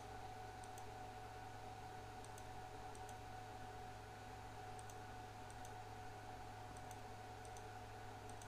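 Faint computer mouse clicks, single and in pairs, as sketch lines are clicked to trim them away. A steady low hum runs underneath.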